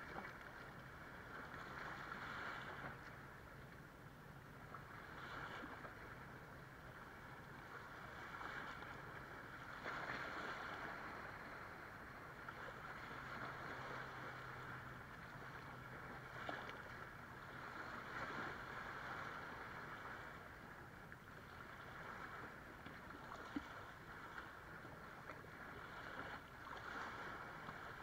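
Small waves washing up on sand and swirling around rocks, swelling and ebbing every few seconds. A faint low hum of a distant boat motor runs underneath and fades out about two-thirds of the way through.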